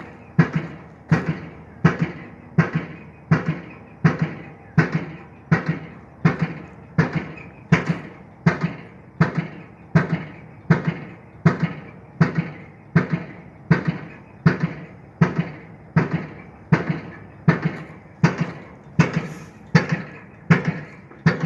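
Pile driver hammering a pile: loud metallic blows in a steady, even rhythm of about three strikes every two seconds, each with a short ringing tail.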